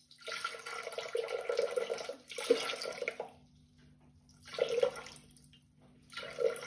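Cold water poured into the Thermomix TM6's stainless-steel mixing bowl: a steady pour for about three seconds, then two short top-up splashes as the amount is brought up to weight.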